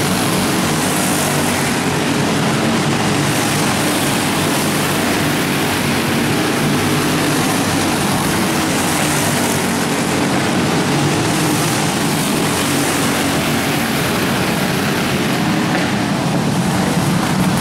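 Racing kart engines running at speed around an indoor oval track, a steady loud engine drone with slight wavering in pitch, echoing in a large arena building.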